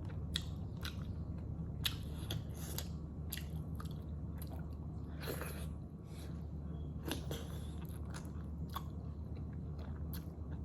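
Close-miked chewing and biting of momos (dumplings): irregular wet smacks and small clicks of the mouth, over a steady low hum.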